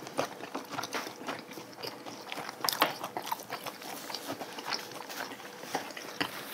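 Close-miked eating sounds: people chewing food, with irregular small clicks and taps of chopsticks against bowls and plates, a little louder about three seconds in.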